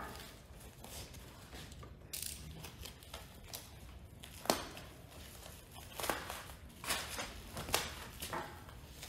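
Plastic stretch wrap crinkling and tearing as it is cut and pulled off a suspension part, in a series of short crackles.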